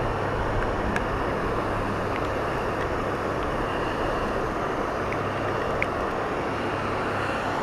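Steady outdoor background rumble and hiss with a low hum, broken by a few faint ticks.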